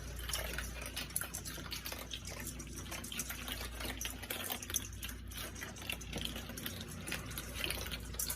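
Faint water sound, trickling or dripping with many small irregular clicks, over a steady low hum.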